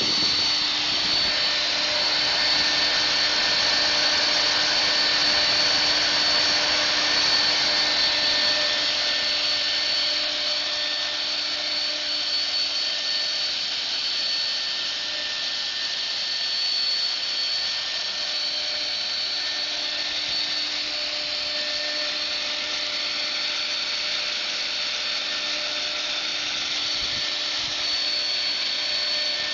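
EXCITECH CNC milling engraver's spindle running as it mills a 3D model: a steady machine whine of several fixed tones over an even cutting hiss.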